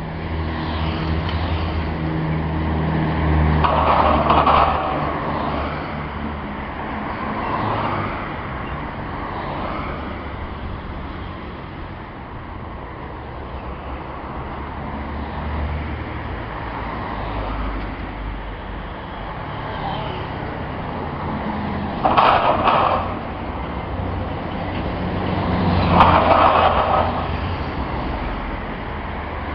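Road traffic passing over a loose metal road plate covering a roadworks trench, the plate banging and rattling as vehicles drive over it. It is loudest three times: about four seconds in, then twice near the end, each a sharp clank. The noise comes from the plate not being fixed down.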